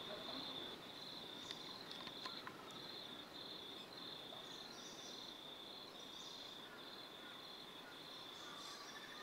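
Insect chirping at night, cricket-like: a faint, high-pitched chirp repeated evenly about twice a second over a soft hiss.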